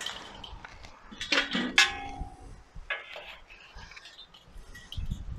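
Glowing charcoal briquettes dropped one at a time from a metal chimney starter onto a perforated steel charcoal grate: several separate clinks and knocks with brief metallic ringing, the loudest about a second and a half in.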